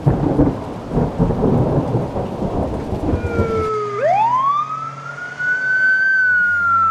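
Rolling thunder with rain, then about four seconds in an emergency siren wails: its pitch sweeps up, holds high and slowly sinks again.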